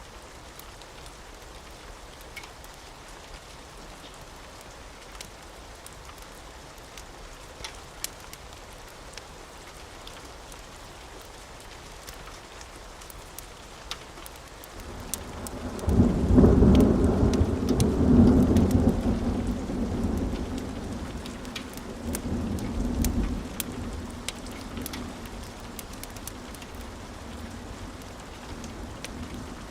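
Steady rain with scattered sharp crackles from a wood fire. About fifteen seconds in, thunder rolls in, a deep rumble that swells twice and fades out over several seconds.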